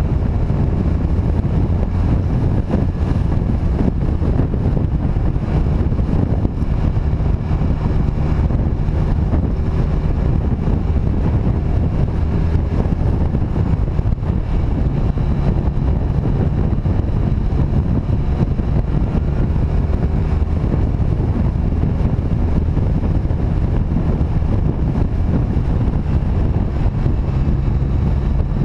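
Motorcycle engine running steadily while riding along a road, with wind rushing over the microphone. The engine note shifts a little about halfway through and again near the end as the speed changes.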